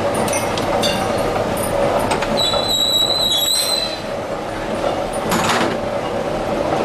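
Pipe threading machine running, a steady mechanical rattle and hum. A high metal-on-metal squeal sets in about two and a half seconds in and lasts just over a second.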